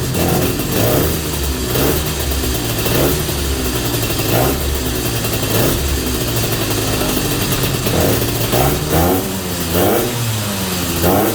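Freshly rebuilt 250 Inter engine running on its first start after the rebuild, revved up and down in repeated blips, with quicker blips near the end.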